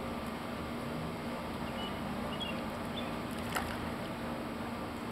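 Steady background hum and hiss with a faint single click about three and a half seconds in.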